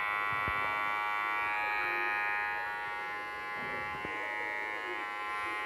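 WAER cordless rechargeable hair clipper running, its motor and blade giving a steady buzz.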